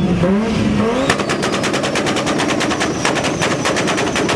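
A car engine on a two-step launch limiter, revving up and then, about a second in, crackling in a rapid, steady string of exhaust pops and bangs as the limiter cuts the ignition.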